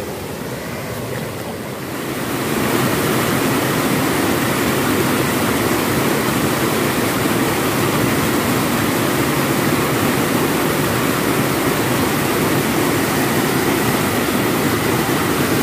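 Water pouring over a small river cascade in a steady, loud rush. It grows louder about two seconds in.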